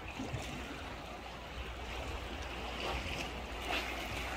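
Steady seaside ambience: a broad, even wash of gentle sea water against the tetrapod breakwater over a low, steady wind rumble on the microphone.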